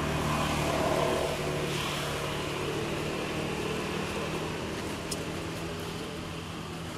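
An engine running steadily, a low hum that holds one pitch, with a small click about five seconds in.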